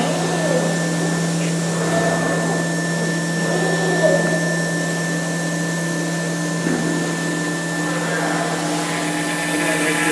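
5-axis CNC router running a machining program: a steady machine noise with a constant low hum and a thin, steady high tone.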